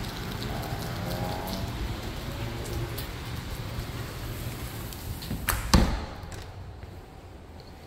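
Steady rain hiss, then a door shutting with a couple of knocks and a thud about five and a half seconds in. After that the rain noise drops away and only a duller background remains.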